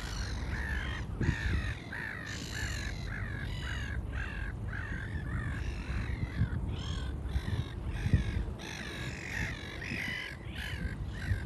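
Several birds giving harsh, cawing calls in quick overlapping series, several a second, over a low rumble that swells in gusts.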